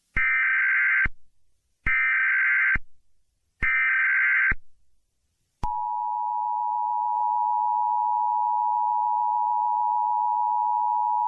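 Emergency Alert System tones: three SAME header data bursts of rapid digital tones, each just under a second long and about a second apart, then, about a second after the third, the steady two-tone EAS attention signal starts and holds.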